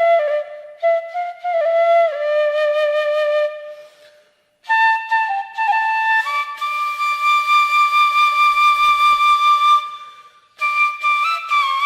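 Background music: a solo flute playing a slow melody with gliding notes, a long held note in the middle and two short pauses.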